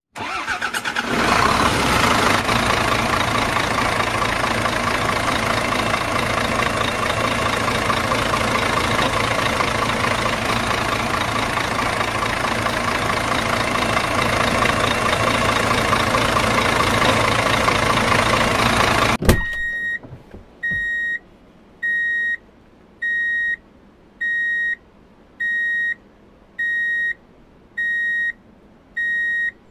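Truck engine sound effect starting up and running steadily, cutting off suddenly about two-thirds of the way in, followed by a truck's reversing alarm beeping about once a second.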